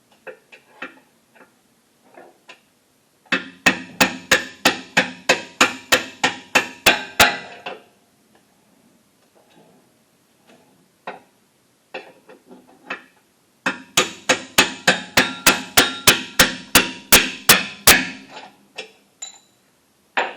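Hammer blows driving out a Jeep TJ Wrangler's lower control arm bolt: two runs of about a dozen ringing metal-on-metal strikes each, about three a second, the first a few seconds in and the second in the latter half, with a few lighter knocks between.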